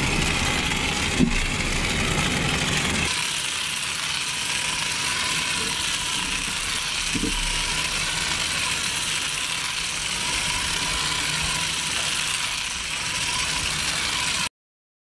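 Battery-powered toy helicopter's 1.5-volt motor spinning its main rotor fast: a steady whirring buzz with a faint thin tone, cutting off abruptly near the end.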